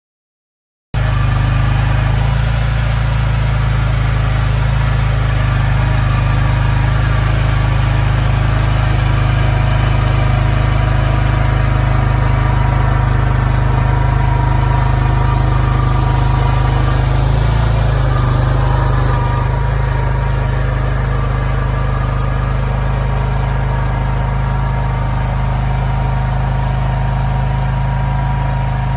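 Skid steer loader's engine running steadily at a constant speed, with a slight drop in level about two-thirds of the way through.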